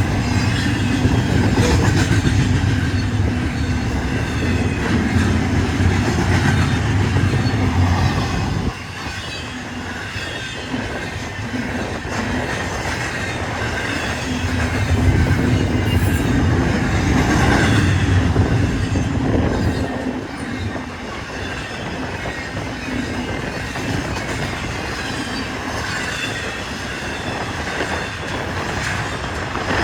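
A freight train passing. The low drone of diesel locomotive engines drops away about nine seconds in, comes back around thirteen seconds and drops away again near twenty. Between and after, the railcars roll by with steady wheel clatter and some wheel squeal.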